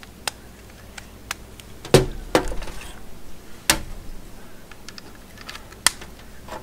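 Sharp clicks and knocks of plastic voltage testers being handled and set down on a hard surface, about half a dozen, the loudest about two seconds in.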